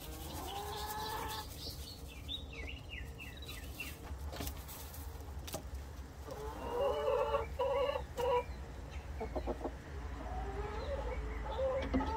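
Hens clucking and calling: a few calls right at the start, a quick run of short falling notes a couple of seconds in, and a louder cluster of clucks around seven to eight seconds in, with a few sharp clicks between.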